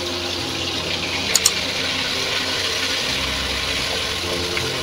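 Raw beef mince sizzling in hot oil as it goes into the pan and is stirred, a steady hiss. Two sharp clicks in quick succession about a second and a half in.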